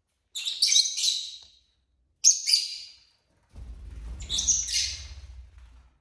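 Lovebird chirping in three bursts of high, rapid chirps, the last one longer and with a low rumble underneath.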